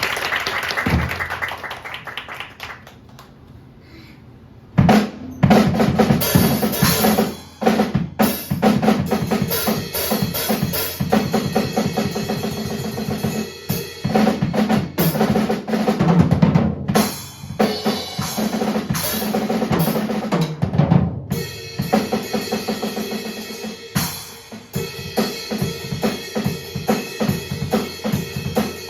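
Brief applause, then about five seconds in a drum kit starts playing live: a fast, busy drum feature with bass drum, snare and rolls.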